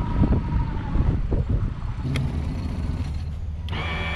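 Suzuki outboard motor on a small aluminum boat, idling with a steady low rumble. There is a single sharp knock about two seconds in, and a steady higher whine joins near the end.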